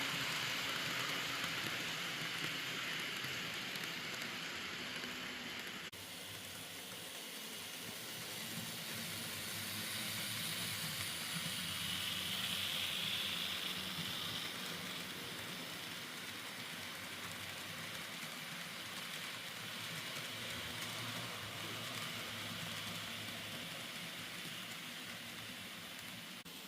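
Model train of an EF58 electric locomotive running along its track: a steady rolling hiss and rattle of small wheels on rails. The sound changes abruptly about six seconds in.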